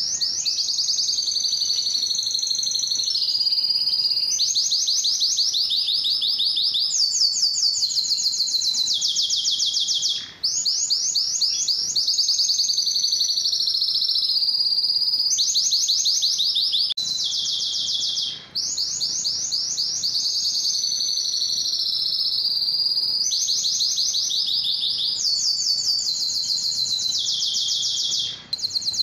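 Male domestic canary singing a long, continuous song of rapid trills: each phrase of quickly repeated notes lasts a second or two before switching to the next, with brief breaks about a third of the way in, two-thirds of the way in and near the end.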